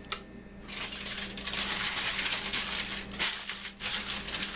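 Seasoned ribeye steak sizzling on a foil-lined, preheated George Foreman contact grill, with aluminium foil crinkling as it is handled. A sharp click comes right at the start, and a dense crackling hiss sets in under a second later.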